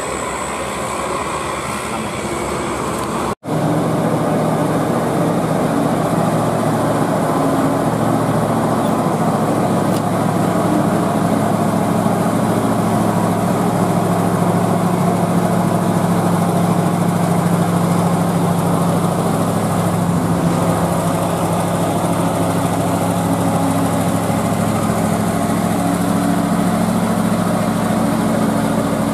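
Road traffic passing for the first few seconds. Then, after an abrupt cut, a heavy diesel engine idles steadily: a stopped Mitsubishi Fuso flatbed truck.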